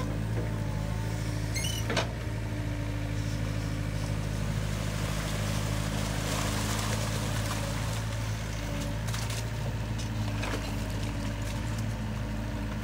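Hitachi mini excavator's diesel engine running steadily while the machine digs in mud, with a sharp knock about two seconds in.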